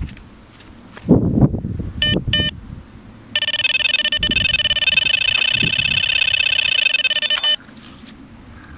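Electronic carp bite alarm signalling a run: two single beeps, then a rapid continuous stream of beeps for about four seconds as the fish takes line, stopping suddenly. Some low thumps come just before the first beeps.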